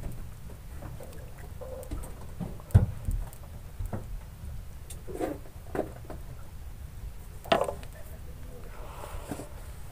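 Ambient sound aboard a small wooden fishing boat: a steady low rumble with a few sharp knocks on the boat, the loudest about three seconds in and another near the end, and faint voices in between.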